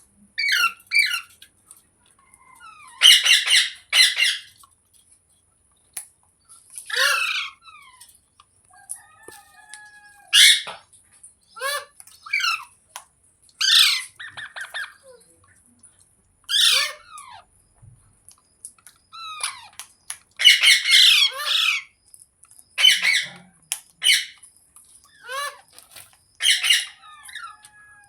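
Green parrot squawking: a string of short, harsh calls, some single and some in quick clusters, with a call every second or two and brief pauses between them.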